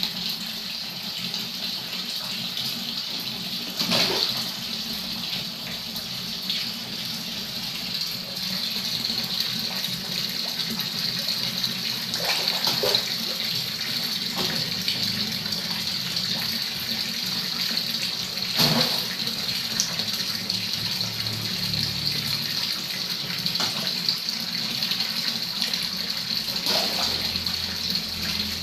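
Water pouring from a tap on a pipe into a shallow tiled fish pond, a steady splashing stream. A few short, sharp sounds stand out above it now and then.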